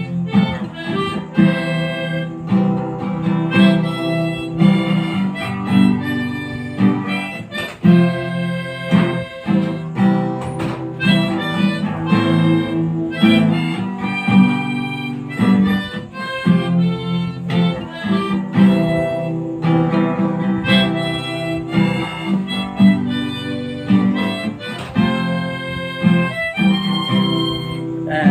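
Harmonica playing a tune without pause, in rhythmic chords and melody notes, with a plucked guitar-like accompaniment.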